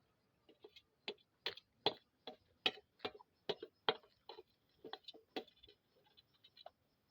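A person chewing instant noodles and egg close to the microphone: a steady run of wet mouth clicks and smacks, about two or three a second, trailing off near the end.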